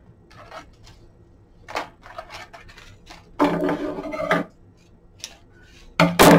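Rustling and light taps of gimp trim being handled and wrapped around a lamp shade, with a sharp snip of scissors near the end, the loudest sound.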